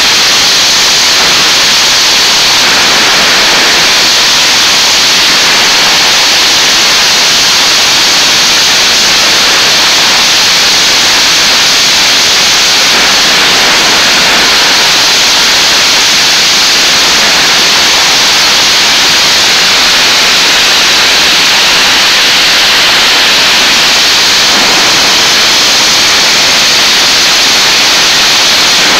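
F/A-18 Hornet's jet engines running at high power during an afterburner ground test. The sound is a steady, very loud rush that overloads the microphone into an even hiss.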